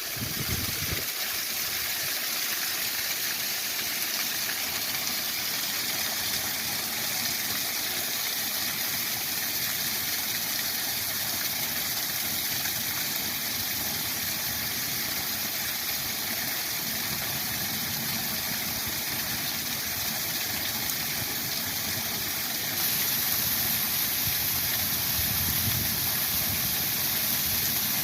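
Waterfall: a steady rush of falling water that grows a little louder about three-quarters of the way through.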